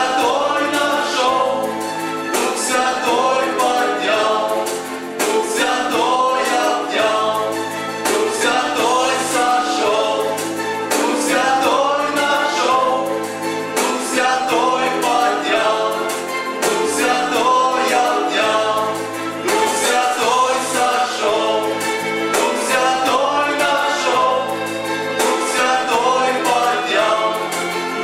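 A male vocal quartet singing a hymn in harmony into microphones, held low notes under the moving melody.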